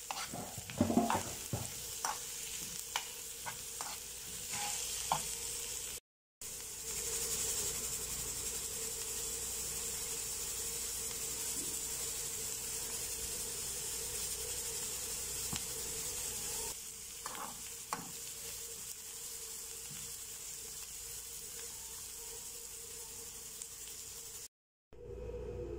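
Sliced onions sizzling as they fry in oil in a pan. In the first few seconds a utensil taps and scrapes the pan as they are stirred, and after that the sizzle runs steadily. The sound cuts out briefly twice.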